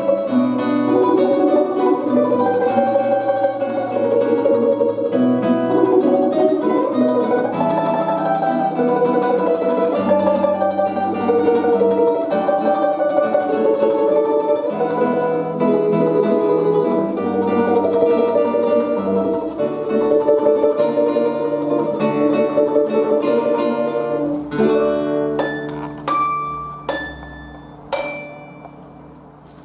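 Instrumental music played on plucked strings, a quick, busy melody over bass notes. About three-quarters of the way through it thins to a few single plucked notes that ring out and fade, ending the piece.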